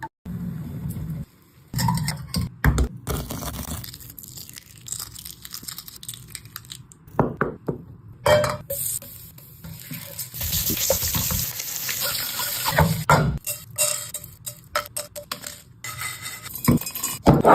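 Cooking sounds in quick cuts: a spatula clinking and scraping against a frying pan, with oil sizzling for a few seconds about halfway through.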